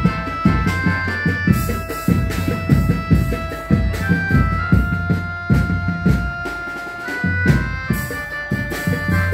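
Loud live music: a melody of long held notes from a keyboard-like instrument over rapid, heavy beats from a stack of large bass drums.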